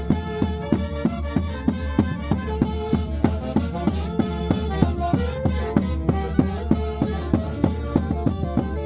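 Peruvian folk band music: a sustained reedy wind melody over a steady, fast beat.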